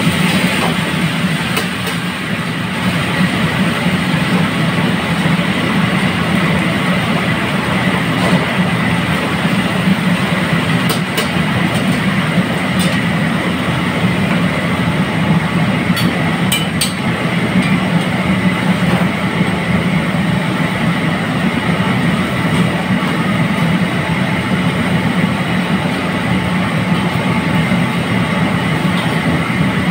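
Steady rumble of a commercial gas wok burner at high flame, with the sizzle of food deep-frying in oil in the wok. A few sharp metal clinks of a utensil against the wok come about a third of the way in and again about halfway.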